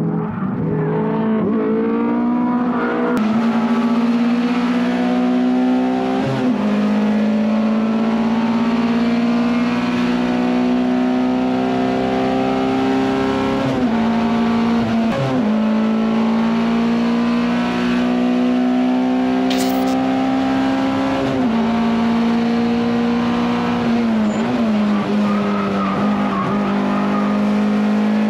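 Honda S2000 race car's F22C 2.2-litre four-cylinder engine at high revs on track, heard from inside the cabin, the note holding high along the straights and dipping sharply at gear changes about six times.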